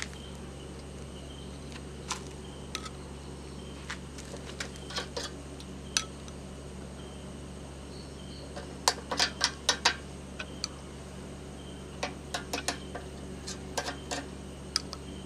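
Metal spoon clinking and tapping against a wire grill basket and a glass bowl as masala sauce is spooned onto fish grilling over charcoal. Sharp clicks come in scattered clusters, thickest about nine seconds in and again around twelve to fourteen seconds, over a steady low hum.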